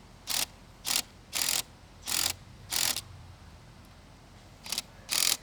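Ratcheting torque wrench being worked in short strokes, tightening the outer clamps on a pipe repair: five ratchet runs about half a second apart, a pause of nearly two seconds, then two more near the end.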